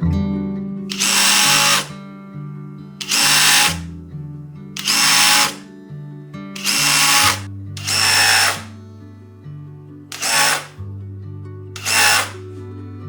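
Power drill running in seven short bursts of under a second each, over background music.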